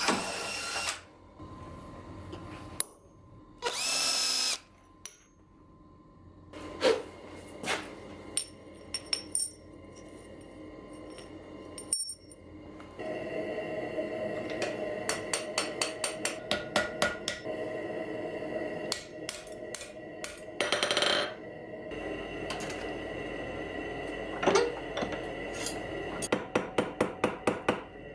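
Blacksmithing on steel: a few short bursts of a power tool, and runs of rapid hammer blows, about four to five a second, over a lingering metallic ring.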